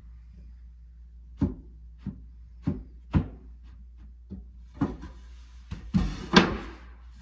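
Pieces of wood being handled and set down: a series of irregular knocks and thunks, the loudest about six seconds in, over a steady low hum.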